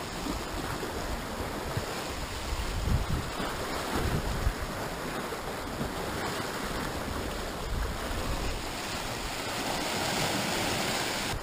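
Sea surf washing and breaking over rocks, a steady rushing wash, with wind buffeting the microphone.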